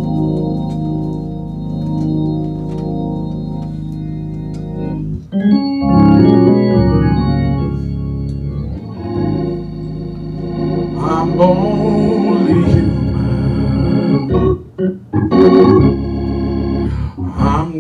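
Electronic organ playing a long held chord, then moving into a slow melody with changing chords about five seconds in.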